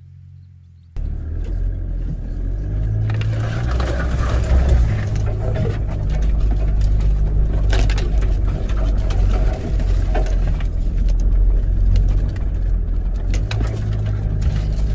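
A vehicle on the move: a loud, low rumble with scattered knocks and rattles, cutting in abruptly about a second in over a faint hum.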